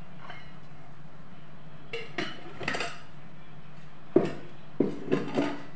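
Metal kitchenware clanking around an aluminium kadhai: a few clinks and knocks about two seconds in, then a sharper clank after about four seconds, followed by several more.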